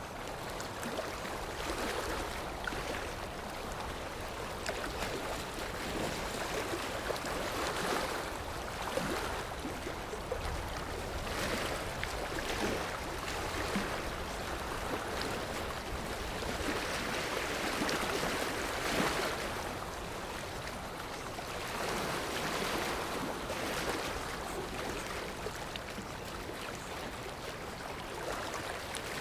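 Sea waves washing onto a shore: a steady rushing surf that swells and eases every few seconds.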